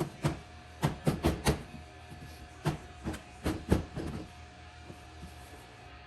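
A car door panel being struck and pressed into place on a third-generation Camaro door, about nine sharp knocks and snaps in irregular groups over the first four seconds as its clips seat.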